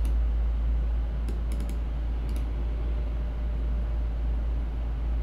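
Steady low hum with a few faint, short clicks from computer input at the start and between about one and two and a half seconds in.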